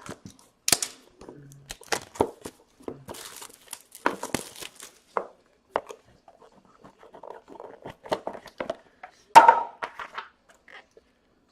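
Hit Parade hockey card box being opened by hand: cardboard and plastic wrapping tearing and crinkling among scattered clicks and taps of handling, with one louder sharp sound near the end.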